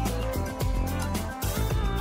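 Background music with a steady beat and held low bass notes.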